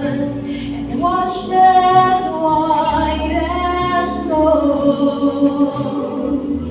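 A song with a woman singing long held notes that glide between pitches, over a soft low accompaniment.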